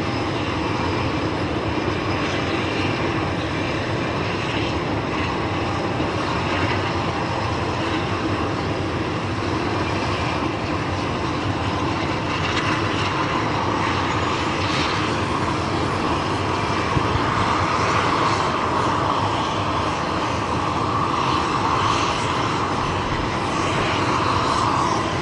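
The two inboard Pratt & Whitney PT6A-50 turboprops of a de Havilland Dash 7 running steadily at ground idle. About halfway through, the auxiliary power unit is started a second time, and a whine builds up over the engine noise and grows louder toward the end.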